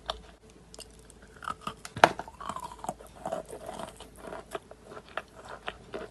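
Someone biting and crunchily chewing lumps of Khrapovsky edible chalk. A loud snap of a bite comes about two seconds in, followed by dense crackling chewing.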